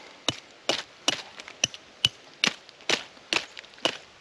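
Knife blade striking a persimmon-wood baton in a run of about ten sharp, woody knocks, roughly two or three a second.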